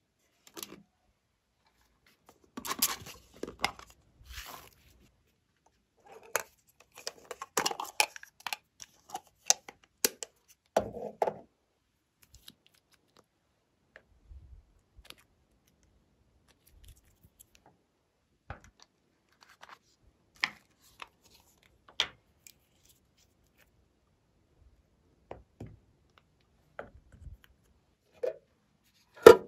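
Handling of small plastic containers and a glass nail-polish bottle: scattered sharp clicks and taps, with short scraping rustles in the first third, separated by quiet gaps.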